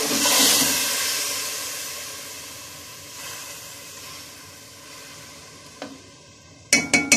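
Water hissing and sizzling as it hits the hot oil and chicken in an aluminium pot, loudest at the start and dying away over several seconds as the water comes up to heat. A quick run of sharp metallic clinks near the end.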